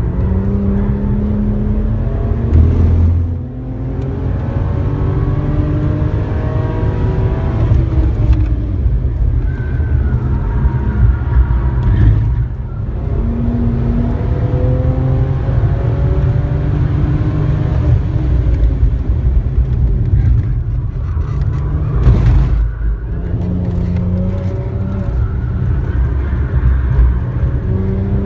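BMW 1M Coupé's 3.0-litre twin-turbo straight-six under hard acceleration on track, heard from inside the cabin, its pitch climbing again and again through the revs. It falls off briefly three times between pulls, over a heavy low rumble.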